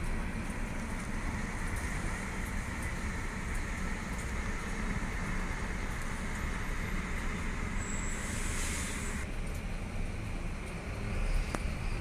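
Steady low background rumble and hiss, with a brief louder hiss about eight seconds in and a faint click near the end.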